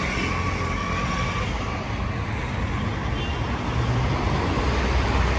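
Busy city street traffic: cars and other vehicles passing in a steady rumble of engines and tyres.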